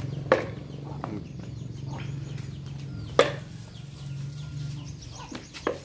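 Two sharp wooden clacks about three seconds apart, typical of a barong mask's hinged jaw being snapped shut, over a steady low hum, with faint chicken clucks near the end.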